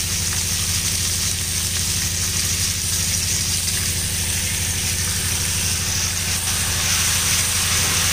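Chilli chicken frying in oil in a pan with onion, tomato, capsicum and garlic: a steady sizzle over a steady low mechanical hum.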